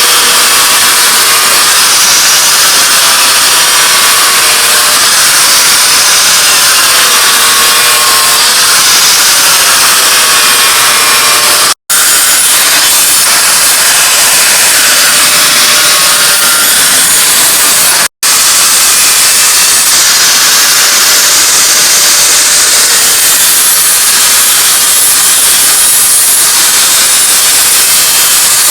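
Loud, continuous grinding of steel, with a faint wavering whine in it: a forged knife blade being worked on a power grinder. It breaks off abruptly twice, near 12 s and near 18 s.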